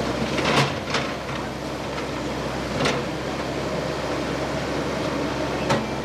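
Steady background noise with a constant low hum, broken by a few sharp knocks or clicks: two in the first second, one near three seconds and one near the end.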